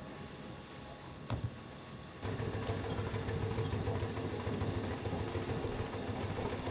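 A clay pug mill running steadily with a low hum from about two seconds in, its auger turning as clay is fed into the hopper. A single knock comes just before the hum.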